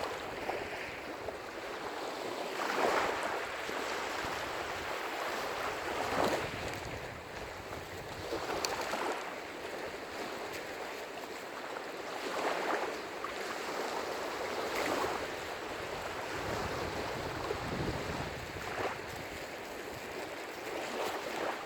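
Lake waves breaking and washing on the shore, a steady rush of water with a louder surge every few seconds.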